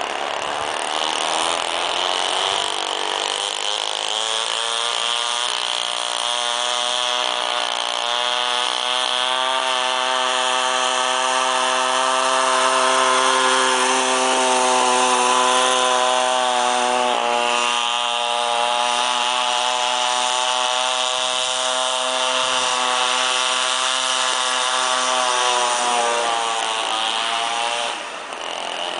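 Druzhba-Elektron chainsaw's single-cylinder two-stroke engine running as the power unit of a homemade towing sled. Its revs climb over the first several seconds, hold steady, then fall away near the end.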